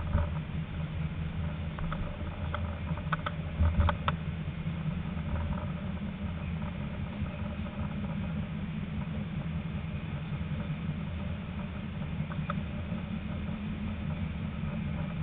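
Tram running along its tracks, heard from inside: a steady low rumble, with a scatter of short clicks in the first four seconds and one more near the end.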